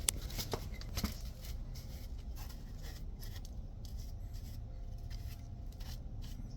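Small handling sounds as leak-test soap solution is put on the gas line fittings for a bubble test: two sharp clicks about a second apart near the start, then faint scattered ticks and rubbing.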